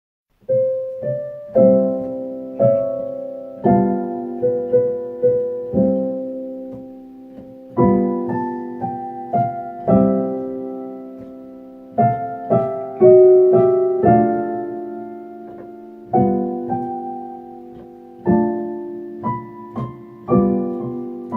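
Solo piano music, slow and calm, with chords and single notes struck and left to fade, starting about half a second in.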